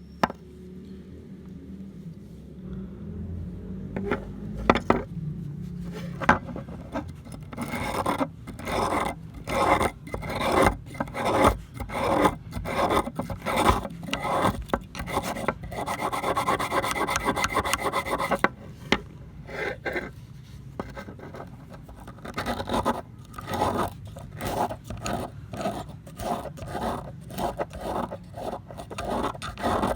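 Rasping strokes of abrasive work on the metal of old pliers, rubbing back and forth in a steady rhythm. It starts after a few light clicks about seven seconds in, runs almost without a break for a while in the middle, pauses briefly, then resumes.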